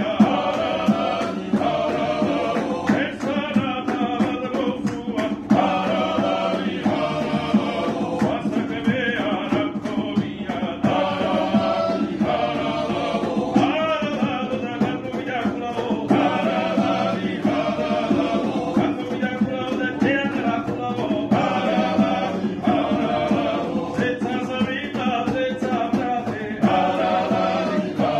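Georgian polyphonic singing: several voices singing together over a steady low drone, in phrases that change every second or two.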